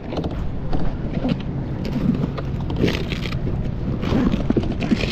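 Irregular knocks and clunks of a plastic fishing kayak and its gear as it comes alongside a concrete ramp and the paddle is set down, with a soft cooler bag being rustled open about three seconds in, over a steady low rumble.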